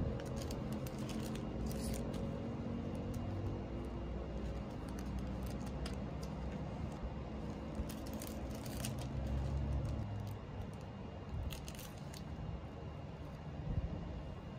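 Thin plastic packaging bags and sample sachets crinkling and rustling in the hands, in short scattered bursts, over a steady low hum.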